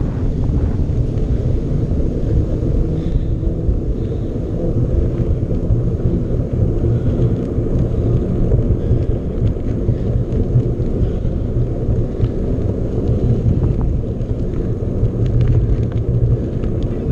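Steady low rumble of wind buffeting the camera microphone while riding a mountain bike, with a few faint clicks and rattles near the end.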